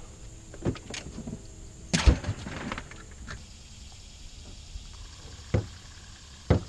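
Knocks and bumps on an aluminum jon boat as gear and the camera are handled: a few light knocks, a louder thump with a short clattering rattle about two seconds in, and two more sharp knocks near the end.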